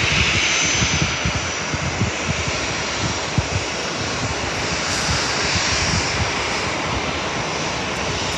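A passenger jet flying low and close overhead, its engines giving a steady, loud rush of noise.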